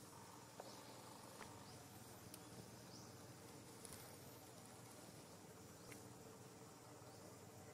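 Near silence: faint outdoor ambience with a few short, high-pitched chirps and occasional soft clicks.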